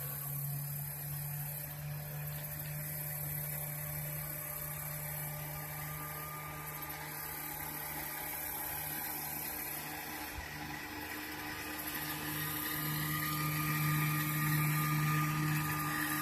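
Small outboard motor on a jon boat running at a steady pitch, getting louder from about twelve seconds in as the boat approaches.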